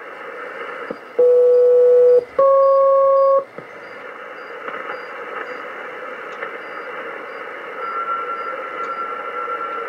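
Shortwave receiver static in upper sideband on an HF aeronautical channel. About a second in, two loud one-second tone bursts with a short gap between them, the pattern of a SELCAL call alerting an aircraft. Near the end a steady whistle comes in over the hiss.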